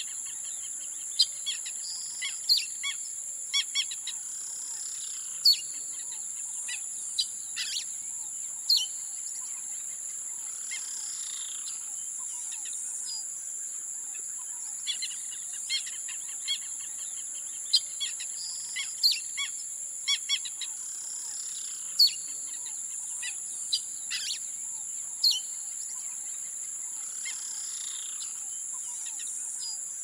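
Afternoon jungle ambience: a steady high-pitched insect drone, with frequent short, sharp bird chirps and calls over it.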